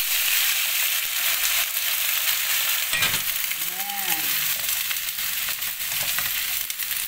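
Broccoli and cauliflower sizzling in a hot nonstick wok as liquid is poured in at the start, the sizzle loudest for the first second or so, with a plastic spatula stirring and scraping against the pan.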